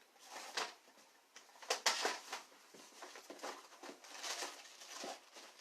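Paper and small craft supplies rustling and clicking as they are handled and moved about on a tabletop, with a cluster of sharp clicks about two seconds in.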